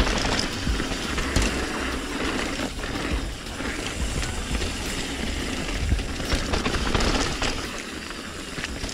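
Mountain bike riding down a rough dirt trail: tyres rolling over gravel and rocks, the bike rattling with sharp knocks over bumps, and wind rumbling on the camera's microphone.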